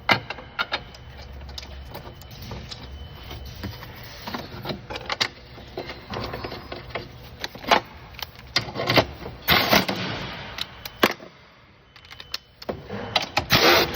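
Metal tools and fasteners clicking and clinking while a strut brace is refitted, with short runs of a small cordless power tool driving the bolts back in, about two-thirds of the way through and again near the end.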